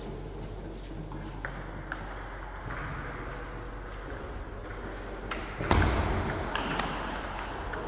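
Table tennis ball clicking sharply off the bats and table in a short serve and rally, with a few light taps earlier and one heavy thump partway through. A brief high squeak comes near the end.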